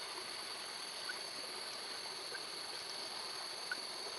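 Faint night ambience: a steady hiss with a constant high-pitched insect drone, and a few tiny faint ticks.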